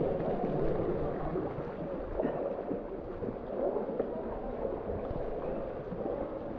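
Steady rush of water pouring and splashing down a rock face into a hot-spring pool, with small irregular splashes.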